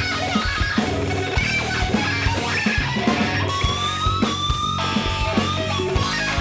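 Live heavy-funk rock band playing an instrumental passage: electric guitar picking over a steady drum beat and bass. Near the middle a long held note slides slightly upward.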